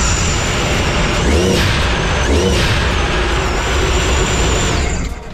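Sea-Doo RXP-X's supercharged Rotax three-cylinder engine running in the hull, freshly fitted with a new cam, with a high whine over the engine note and a couple of throttle blips that swell and fall. It shuts off abruptly near the end, and the engine is judged to sound good but still in need of a tune.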